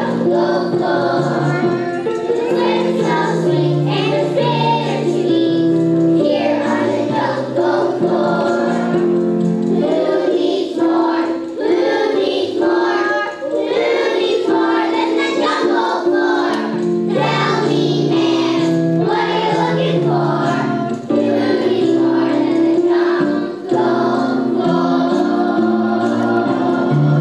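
A choir of young children singing a song together over steady instrumental accompaniment.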